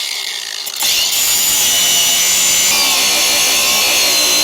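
Cordless angle grinder running, then biting into metal about a second in with a steady, high grinding whine: cutting off a seat-support bolt whose over-long shank let the nut strip out so it can't be unscrewed.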